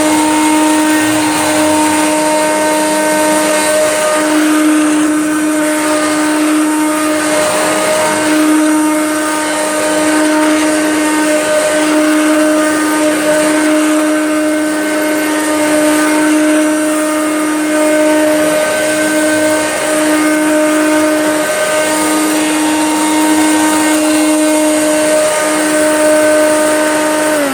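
Hoover Turbomaster vacuum cleaner running steadily over carpet, a constant motor hum over airflow hiss. Right at the end it is switched off and the motor winds down with falling pitch.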